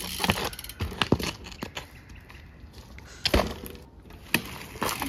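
Scattered knocks and crunches from a mountain bike and a rider's shoes on a dirt and gravel path as the front wheel is lifted from standstill and set back down. The loudest thud comes a little over three seconds in.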